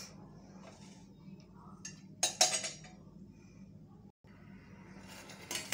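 Spatula scraping and clinking against a stainless steel pot while stirring milk and sugar as it cooks down. One louder ringing clink comes about two seconds in and a shorter one near the end, over a steady low hum.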